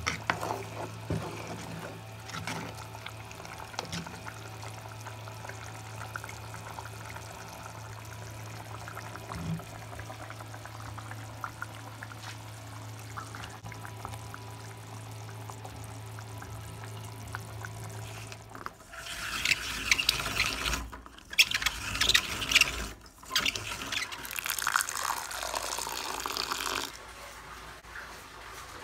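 Pork curry bubbling and simmering in a clay pot, over a steady low hum. About two-thirds of the way in, loud hissing bursts with short breaks take over for several seconds, then stop.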